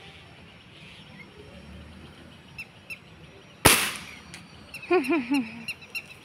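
Single shot from a .177 break-barrel air rifle: one sharp crack about three and a half seconds in.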